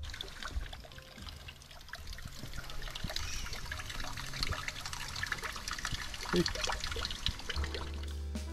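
Water trickling and splashing, a dense patter of small splashes over background music.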